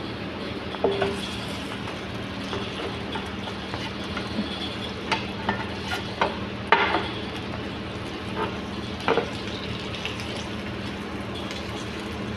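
Spiced whole chicken sizzling in an oiled grill pan, with a steady low hum beneath. A metal utensil knocks and scrapes against the pan several times, loudest about a third of the way through.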